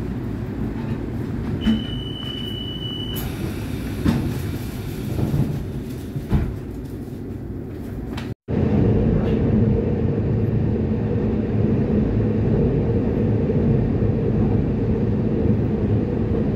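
Ambient noise with a few scattered clicks and a brief high steady beep. About halfway through, an abrupt cut leads into the louder, steady, low rumble of a train running on the rails.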